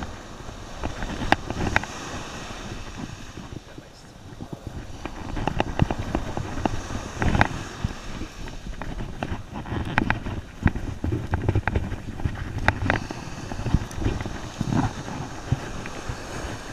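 Wind buffeting the microphone, with irregular clicks and knocks from pliers and hands working a hook out of a landed shark's mouth.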